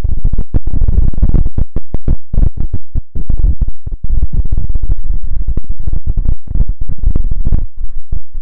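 Heavy wind buffeting the microphone: loud, irregular low rumbling and crackling gusts that cut in and out many times a second.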